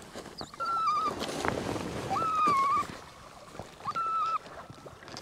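A retrieving dog whining three times as it swims out for a downed duck, each whine about half a second long, held at one pitch and dropping slightly at the end, spaced about a second and a half apart. Faint water and kayak sounds lie underneath.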